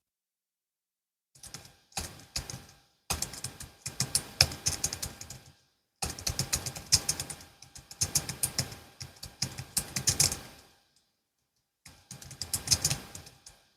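Typing on a Logitech MX Keys S low-profile keyboard: fast runs of soft key clicks, starting about a second in, broken by short pauses.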